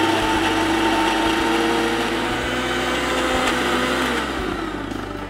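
Electric mixer grinder with a small stainless steel jar running at speed, blending a thick beetroot and chickpea hummus paste. It runs steadily, then is switched off about four seconds in and winds down.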